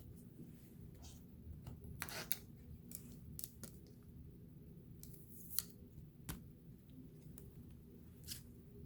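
Faint scattered clicks and crinkles of a trading-card blaster box and its plastic wrapping being handled and opened.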